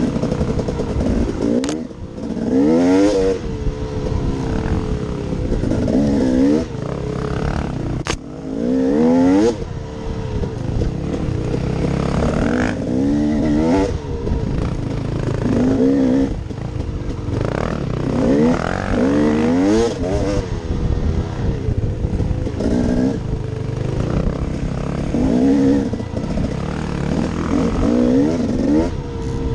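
2015 KTM 250 XC's two-stroke engine being ridden on a dirt trail, its pitch rising with each burst of throttle and falling off again every few seconds. Two sharp knocks come a couple of seconds in and about eight seconds in.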